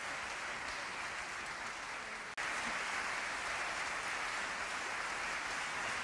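Audience applauding steadily, with a sudden step up in loudness about two and a half seconds in.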